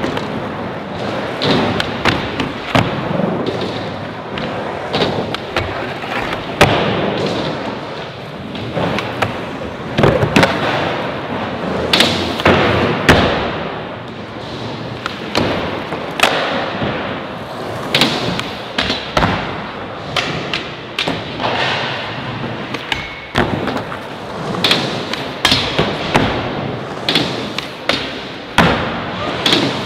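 Skateboards rolling over wooden ramps and a concrete floor, with frequent sharp clacks and thuds as tricks are popped and landed and boards hit a rail.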